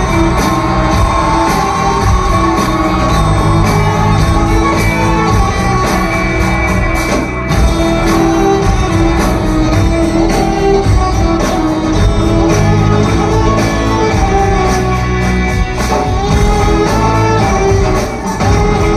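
A song remix playing continuously: a mashup of Indian film songs.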